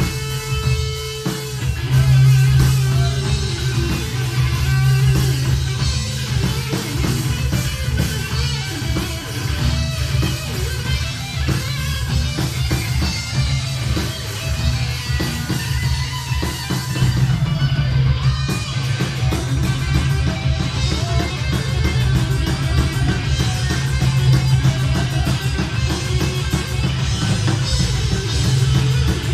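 Live heavy metal band playing: distorted electric guitars, bass and drum kit, recorded on a mobile phone.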